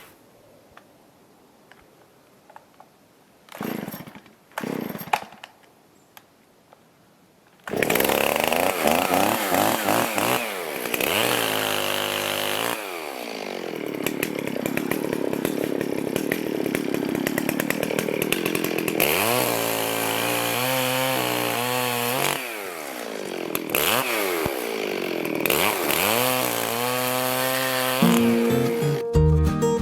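A chainsaw starts up abruptly about a third of the way in and runs, revving up and down again and again as it cuts wood. Two short noises come before it.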